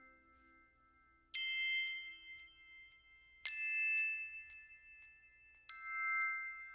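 Background music: three struck, chime-like notes about two seconds apart, each ringing on after it is struck.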